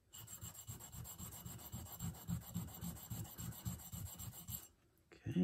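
A small steel shotgun extractor rubbed back and forth on a dry India sharpening stone in quick, even strokes, stoning a little metal off so it fits the bolt. The strokes stop near the end, followed by a brief low sound.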